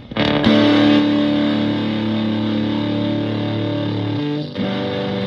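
Stratocaster electric guitar played through a Zonk Machine fuzz pedal into a Fender Twin-style valve amp. A fuzzed chord is struck and left to sustain, then the guitar changes to new notes about four seconds in.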